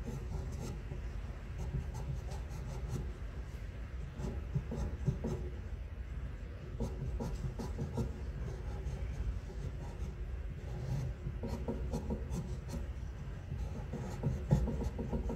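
Faber-Castell colour pastel pencil scratching across Strathmore charcoal paper in many short, repeated strokes, laying in the darker shading of the drawing. A steady low hum runs underneath.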